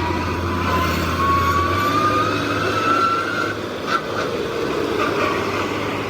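Truck engine running with a steady low hum. Over it a whine rises slowly in pitch and stops about three and a half seconds in, followed by a couple of short knocks.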